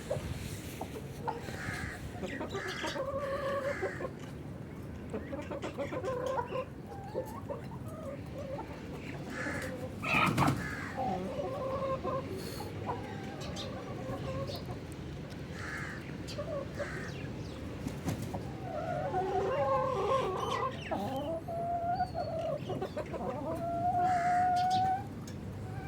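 Aseel chickens clucking, a rooster and hens, in many short calls. A brief loud burst comes about ten seconds in, and near the end a long drawn-out call rises slightly in pitch.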